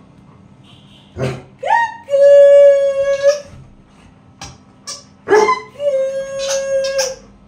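German Shepherd howling twice. Each howl starts with a short sharp yelp, rises, then settles into a long held note of a second or more.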